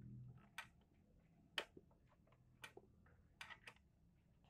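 About half a dozen sharp, faint clicks at irregular spacing, roughly one a second, from a wrench working a horn mounting bolt as it is tightened.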